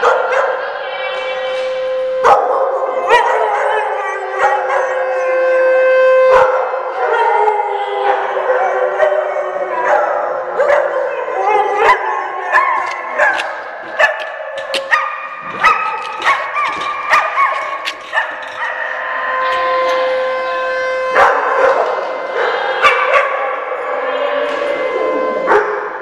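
Several dogs howling together, with sharp yips and barks throughout, set off by an outdoor warning siren test. A steady siren tone sounds beneath the howls twice, for a few seconds each time.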